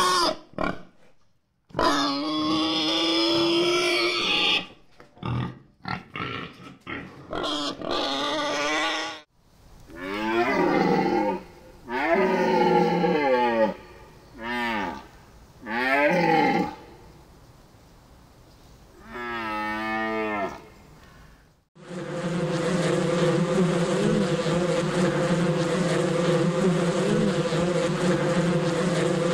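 A run of calls from several different animals in turn, loud and pitched, some falling in pitch; for the last third they give way to a steady, unbroken droning hum.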